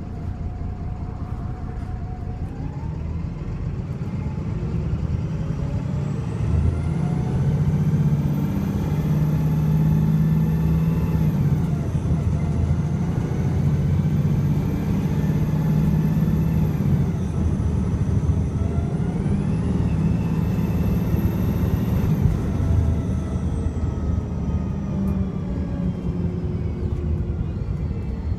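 VDL SB200 bus under hard acceleration, its engine and Voith automatic gearbox whining up in pitch, dropping back at gear changes, climbing again, then winding down near the end. The engine is misfiring.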